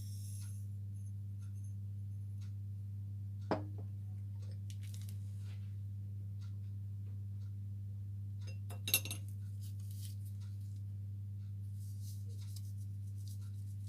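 Kitchen utensils and glassware clinking lightly, with a sharper knock about three and a half seconds in and a cluster of clinks about nine seconds in, over a steady low hum.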